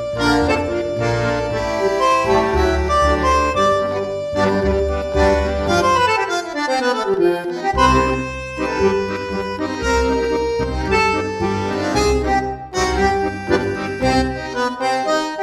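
Instrumental background music with sustained chords over a pulsing bass, and a run of falling notes about halfway through.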